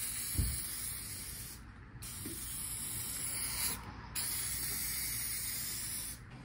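Aerosol can of SEM Color Coat upholstery paint spraying in three long hissing bursts with short pauses between, laying a coat of paint onto an interior trim piece.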